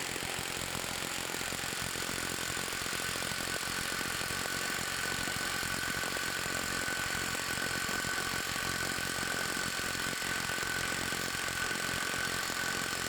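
Cordless mid-torque impact wrench hammering nonstop at full power on a torque-testing rig, a steady rattling drone with a high whine running through it.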